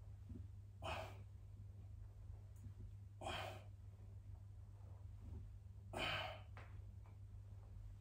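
A man breathing out hard three times, each a short huff about two and a half seconds apart, in time with his crunch repetitions. A steady low hum runs underneath.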